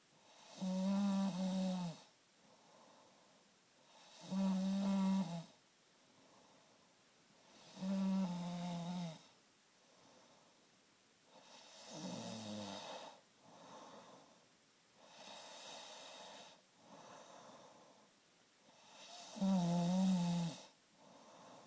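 A man snoring in his sleep: loud, low-pitched snores about every four seconds, with quieter breaths between them. Partway through, the snores weaken to one softer snore that drops in pitch and a few quiet breaths, before one more loud snore near the end.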